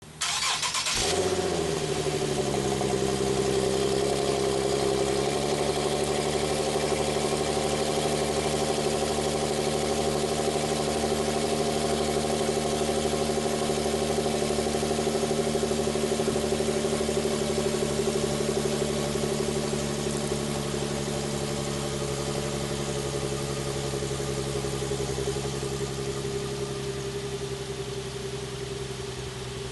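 2016 Infiniti QX50's 3.7-litre VQ37 V6 on its stock exhaust, muffler still fitted, cold-starting. It catches almost at once, flares and falls back, steps down in pitch about five seconds in, then holds a steady cold idle.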